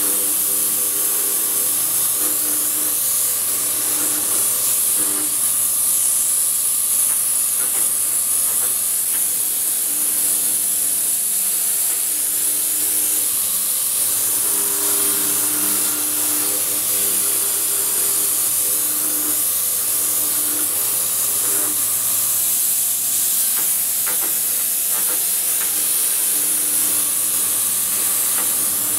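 Bridgeport CNC milling machine running a large end mill through a laminated wooden plinth: a loud, steady high hiss, with humming motor tones that come and go.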